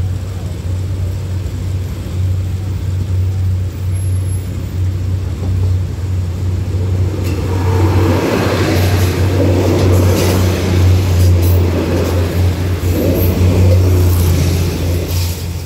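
A diesel passenger train approaches and passes close by at speed over a level crossing, with a steady low drone throughout. From about halfway through, a loud rushing clatter of wheels over the rails and crossing joins it, lasting until near the end.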